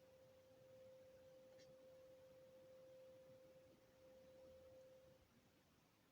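Faint, steady single-pitched hum from a distant source, which the recorder takes for industrial noise; it dips briefly near four seconds in and fades out after about five seconds.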